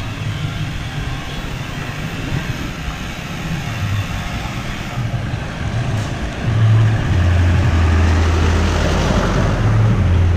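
Street traffic noise, with a low vehicle rumble that grows louder about two-thirds of the way through and stays strong.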